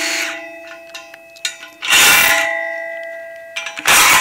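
Cordless power driver running in two short bursts on the bolts of a stainless steel pole's flat base plate, about two seconds in and again near the end, with small clicks between. Each burst leaves the steel pipe ringing like a bell, the ringing fading slowly.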